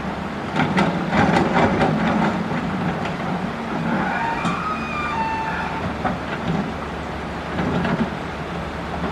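Caterpillar excavator's diesel engine running under load while its bucket digs coral rock, with a run of knocks and scrapes of rock in the first two seconds. A brief high squeal comes about four to five seconds in.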